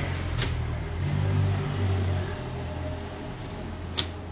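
Steady low rumble, with two short sharp clicks of a steel shelf panel knocking against a slotted-angle steel rack frame as it is fitted, one about half a second in and one near the end.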